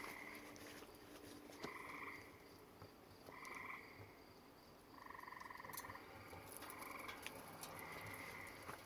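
Faint frog calls in the background: short trilled calls repeated every second or two.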